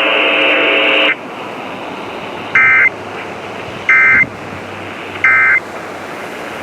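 Emergency Alert System end-of-message: three short warbling bursts of SAME digital data, a little over a second apart, over a steady hiss. Before them, a loud buzz made of many steady tones cuts off about a second in.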